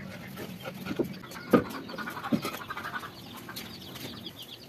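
Hard knocks and scraping as concrete pipe sections are set down on a concrete floor, three sharp knocks with the loudest about a second and a half in, while birds call in the background.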